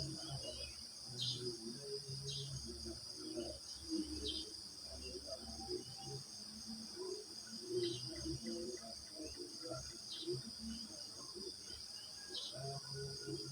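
Crickets chirping in a steady, continuous chorus, with short bird chirps breaking in every second or two.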